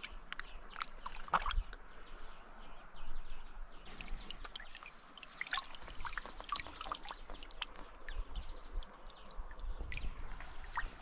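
Shallow river water splashing and dripping as a large brown trout is handled in the net and lifted out of the water, with many small splashes and drips over a steady flow of the river.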